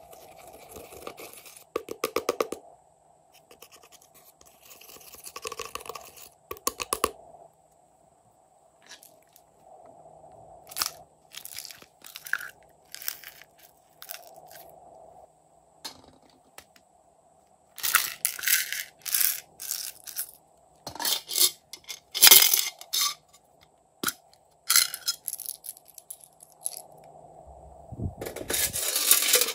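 Close-up scraping of pressed eyeshadow out of a plastic makeup palette with a small metal spatula, a fast scratchy rasp in runs. Later come sharp clicks and scrapes of small plastic pieces being handled, loudest after the middle.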